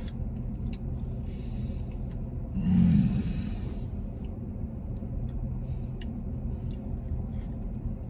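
Steady low hum of an idling vehicle heard inside its cabin. About three seconds in, a man gives a loud, breathy 'mm' of enjoyment, with a softer exhale shortly before it.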